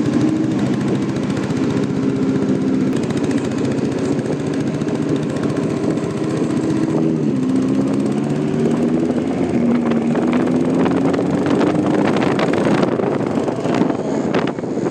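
Lamborghini Huracán Evo Spyder's V10 running. Its pitch drops about seven seconds in, then rises steadily, with a quick series of sharp exhaust crackles over the last few seconds.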